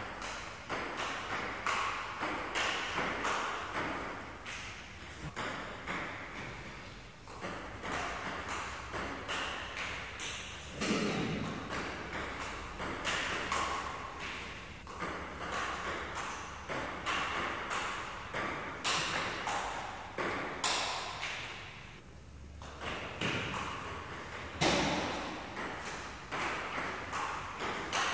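Table tennis rally: the ball clicking off the paddles and bouncing on the table in a quick, steady string of sharp hits, a few a second.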